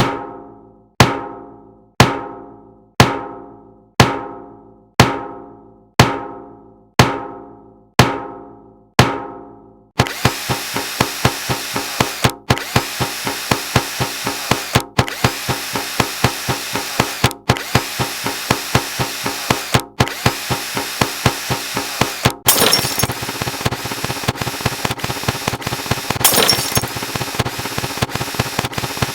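A sequence of sound effects. A pitched, struck tone sounds ten times, once a second, each ring dying away. It is then replaced by a fast, rhythmic mechanical clatter that stops briefly about every two and a half seconds and grows denser and louder near the end.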